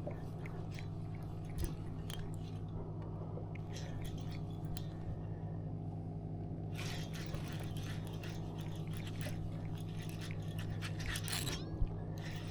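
A steady low mechanical hum, with scattered small clicks and rustles of handling over it and a sharper knock near the end.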